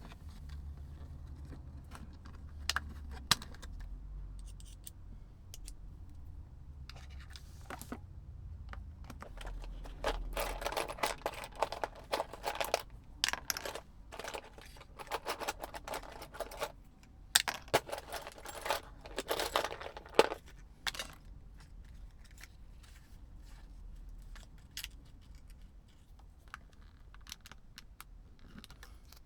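Small hard parts clicking and rattling as a Blu-ray remote control is handled for repair: scattered clicks at first, a busy stretch of rapid clicking and rattling in the middle, then a few light clicks near the end.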